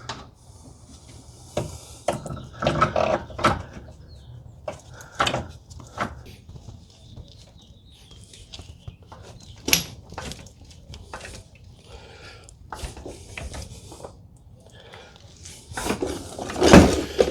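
Scattered metal knocks and clunks as a motor mount is worked back into place between the engine and subframe, with a louder knock near the end.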